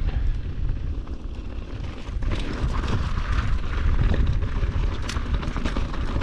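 Wind rumbling on a helmet-mounted camera's microphone as a downhill mountain bike rolls down a gravel road. From about two seconds in, the crunch and rattle of knobby tyres over loose gravel and stones joins it.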